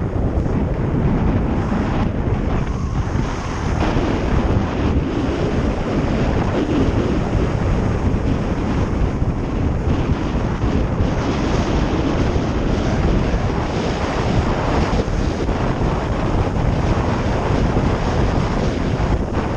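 Heavy wind buffeting on a helmet-mounted GoPro's microphone as a bicycle descends a paved road at about 26 to 36 mph, a dense low rushing that stays steady throughout.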